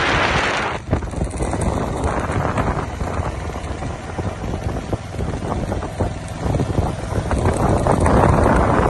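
Wind buffeting the microphone: a rough, steady rush with a short dip about a second in.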